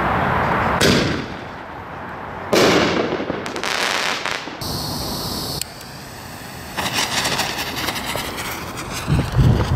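Brothers Pyrotechnics American Chief consumer mortar ball shell: a sharp crack about a second in, then a loud bang that fades over a couple of seconds. A brief hiss follows, and a dense run of crackling comes near the end.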